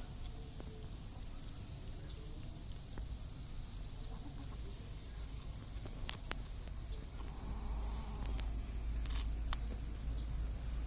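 Kitten chewing raw suckermouth catfish: a few sharp crunches in the second half, over a steady low rumble and a thin high steady tone that stops near the end.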